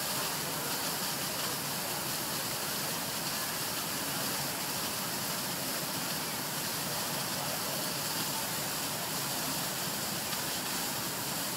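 Steady, unbroken hissing rush of water and steam at a burning electrical transformer being fought by firefighters.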